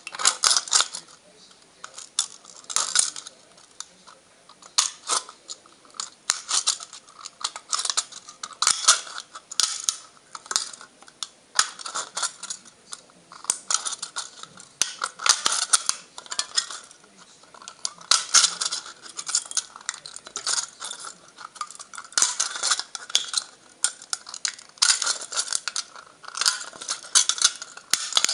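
Manual can opener cutting around the rim of an aluminium drink can: clusters of metallic clicking and scraping every second or two as it is worked round.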